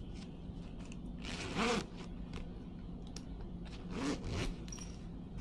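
The zipper of a fabric laptop bag being pulled in two strokes, one about a second and a half in and one about four seconds in, with small clicks and rustles of handling the bag.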